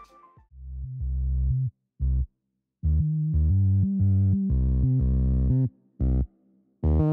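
Background music: synthesizer and bass notes in short phrases, each cut off suddenly, with gaps of silence between them.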